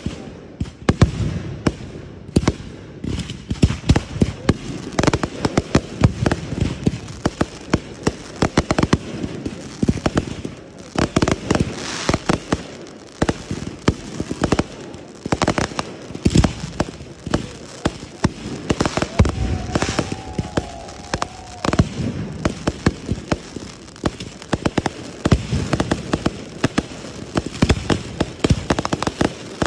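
Fireworks going off in a rapid, continuous barrage of bangs and crackles, many reports a second, with deep booms underneath.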